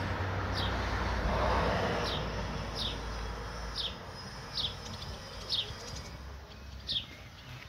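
Barn swallows calling: short, sharp chirps, each a quick downward note, about one a second. A broad rushing background noise fades away over the first few seconds.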